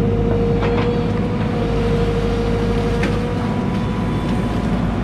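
Excavator's diesel engine running steadily with a constant whine as its bucket digs wet muck out of a trench. A couple of faint knocks come through.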